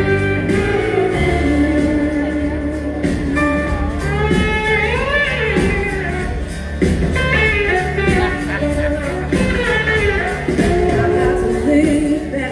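Live blues-rock band playing with a lead vocal, electric guitars and drums keeping a steady beat, heard from the audience seats of a theatre.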